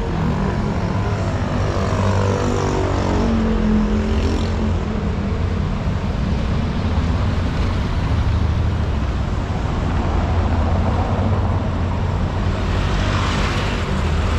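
Street traffic: a steady low engine rumble, with a vehicle passing close by about two seconds in, its engine pitch falling as it goes. A brief hiss comes near the end.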